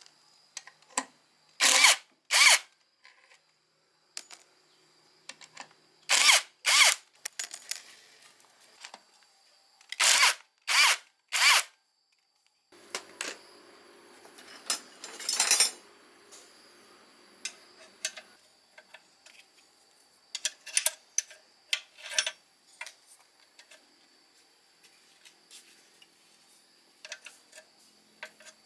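Handheld power tool, a drill or driver, run in short bursts of about half a second, two or three at a time. A longer, quieter spell of tool work follows, with one loud burst in the middle, and then scattered light clicks and knocks of metal parts being handled.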